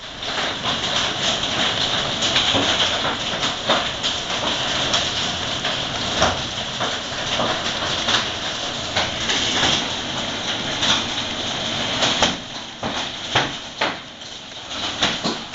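Hail pelting down: a dense, steady hiss with many sharp cracks of individual hailstones striking hard surfaces. Near the end the hiss eases a little and the separate hits stand out more.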